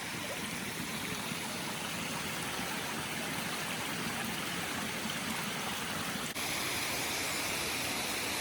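Steady rushing of water from a cascading stream or small waterfall. The sound cuts abruptly about six seconds in and carries on slightly louder and brighter.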